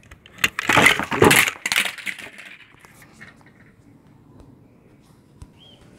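Crackling, scraping handling noise for about a second and a half, from a hand working right at the microphone. Then low hiss, with one short high chirp near the end.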